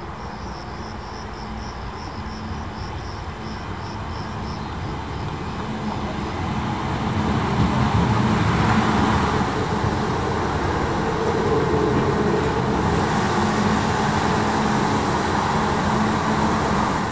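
Portuguese CP electric multiple unit approaching and running along a station platform: a rumble of wheels on rails with a steady low motor hum, growing louder over the first several seconds and then holding.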